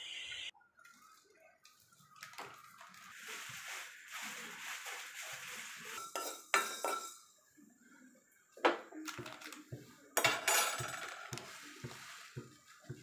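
Kitchen clatter: a few sharp knocks and clinks of pots, plates and utensils being handled, with stretches of soft hiss between them.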